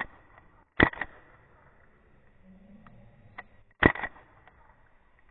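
Airsoft gun firing short, sharp snaps in quick pairs: one pair about a second in and another about three seconds later.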